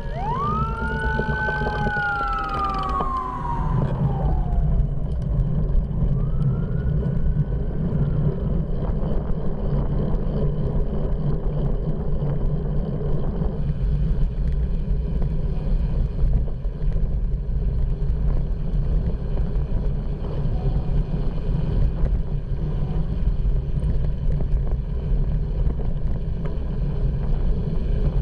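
Emergency vehicle siren wailing, its pitch sweeping up and down for the first few seconds, with one last faint sweep about six seconds in. Under it, steady wind rush and road rumble on a bicycle-mounted camera's microphone.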